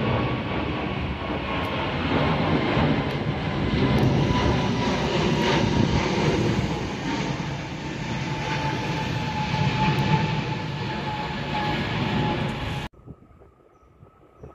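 Jet airliner passing low overhead, its engines making a loud, steady noise with a whine that slowly falls in pitch. The sound cuts off suddenly near the end.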